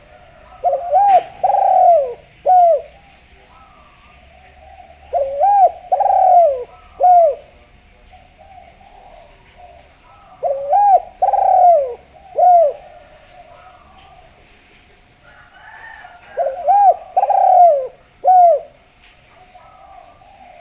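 Spotted dove (derkuku) singing, four cooing phrases about five seconds apart. Each phrase is a quick pair of coos, a longer coo and a short final coo. Fainter cooing and a few chirps go on underneath.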